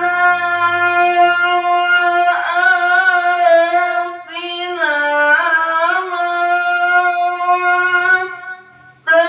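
A qari's solo voice in melodic Quran recitation, holding one long drawn-out vowel with ornamented turns in pitch. The voice breaks off for a breath shortly before the end, then takes up the line again.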